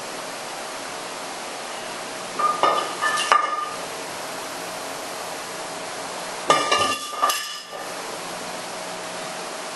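An anvil with a weight plate chained to it clanks as it is lifted by the horn, about two and a half seconds in, with chain links and iron rattling and briefly ringing. It clanks louder as it is set back down about four seconds later. A steady hiss runs underneath.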